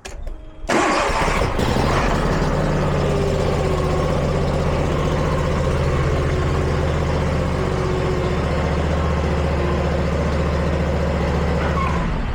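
Vanguard 40 hp EFI V-twin engine on a Scag V-Ride stand-on mower starting up, running steadily at idle, then shutting off near the end.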